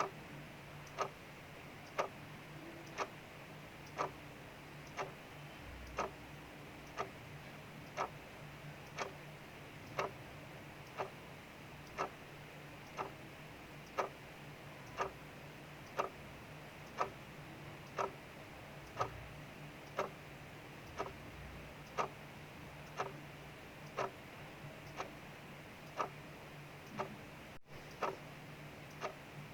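Clock ticking steadily, about one tick a second, over a faint steady hiss of rain outside.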